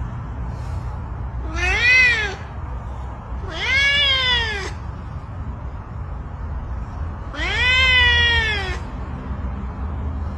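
Domestic cat meowing three times, each meow rising and then falling in pitch, the last one the longest; meows of a cat asking for food.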